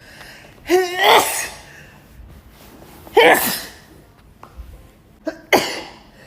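A woman sneezing three times in a fit. The first two sneezes start with a rising voiced 'ah' before the burst, and the third is short and sharp near the end.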